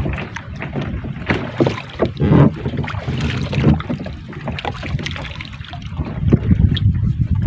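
Wind buffeting the microphone over the rumble and splash of water against a small fishing boat at sea, with irregular knocks and slaps throughout.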